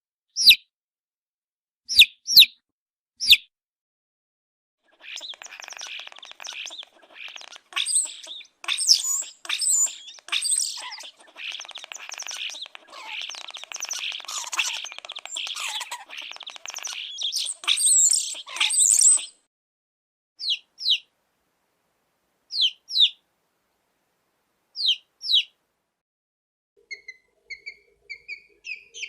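Chicks peeping: short, sharp peeps, often in pairs, then a dense chorus of many chicks peeping at once for about fourteen seconds, ending suddenly. Separate peeps follow, and near the end a faster run of peeps over a low hum.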